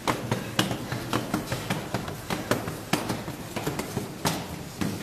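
Footsteps of several people in ski boots climbing concrete stairs: hard, irregular clunks, several each second.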